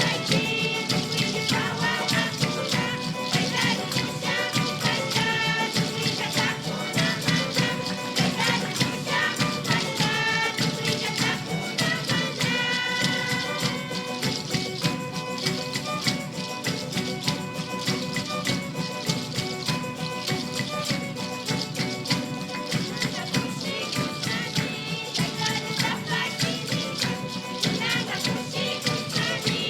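Live band playing an upbeat instrumental passage of Andean-style worship music, with melody instruments over hand percussion keeping a fast, steady beat.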